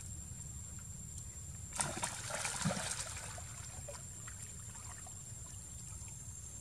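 Water splashing as macaques swim in a pool. A burst of splashes comes about two seconds in, then softer trickling and lapping.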